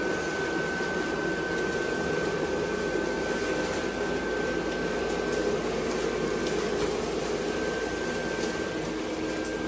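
The built-in blower fan of a Gemmy Airblown inflatable running at full speed as it inflates the decoration: a steady high whine over a rushing hum.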